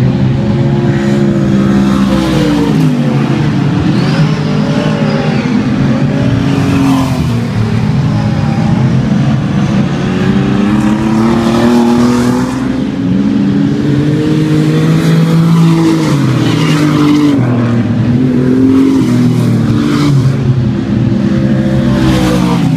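Speedway superstock cars racing on a dirt oval: several engines at once, each rising and falling in pitch as the cars lap. One car comes past close near the end.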